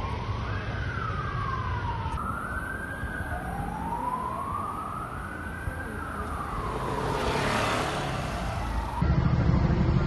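Emergency vehicle siren wailing, its pitch slowly rising and falling over a low rumble. About nine seconds in the siren gives way to a louder low rumble.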